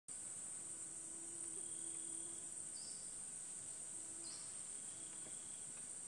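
Insects droning in one steady high-pitched buzz, with two brief chirps about three and four seconds in.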